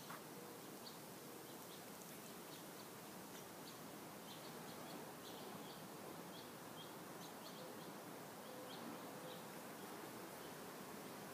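Faint birds chirping: scattered short, high notes in quick little runs, thinning out near the end, over a steady hiss.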